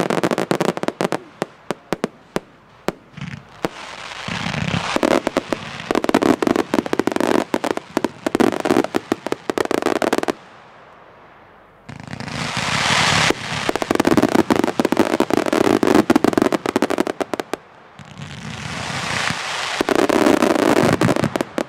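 Fireworks display: rapid barrages of bangs and crackling over a rushing hiss, coming in waves that drop away briefly about ten seconds in and again shortly before the end.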